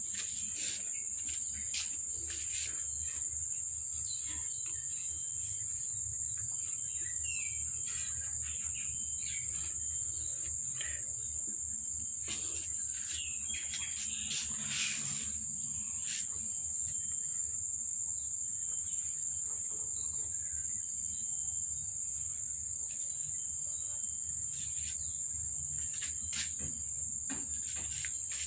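Insects droning steadily on one high pitch, with scattered faint clicks and a few short high chirps.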